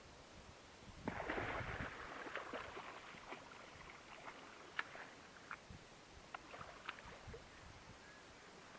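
A hooked wels catfish thrashing at the water's surface: a burst of splashing about a second in, then scattered smaller splashes and drips.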